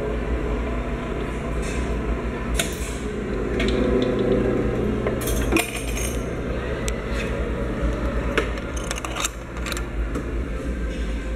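Pressed-coin (penny press) machine running: its steel gears, rollers and chain drive turn with a brief grinding around the middle. A string of sharp metallic clicks and clinks comes as a coin is pressed and drops out, over a steady low hum.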